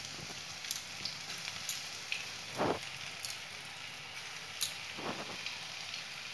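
Paneer cubes coated in cornflour and maida frying in hot oil in a non-stick pan: a steady sizzle with small crackles and pops. Two brief soft thumps come about two and a half and five seconds in.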